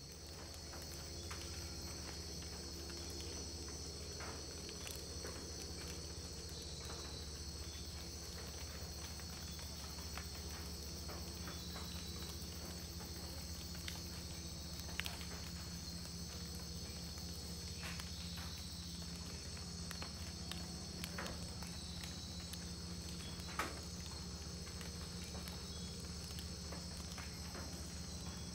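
Rainforest insect chorus: a steady, dense high buzzing and trilling, fading in at the start, with a low steady hum underneath and a few faint clicks.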